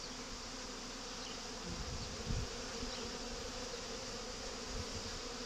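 Many honeybees buzzing steadily as they fly in and out of the hive entrances, a continuous hum of foragers. A few faint low thumps near the middle.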